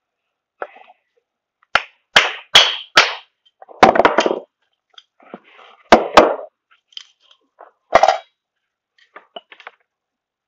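Sharp knocks and clatters of metal scrap parts being handled at a workbench: four knocks about half a second apart from about two seconds in, a longer clatter around four seconds, then two knocks near six seconds and one more near eight.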